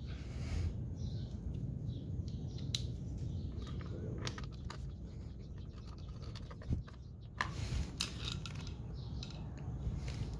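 Faint clicks and scrapes of a screwdriver turning a screw and of hands handling the dirt bike's air intake parts, over a steady low hum. One sharper click comes about seven seconds in.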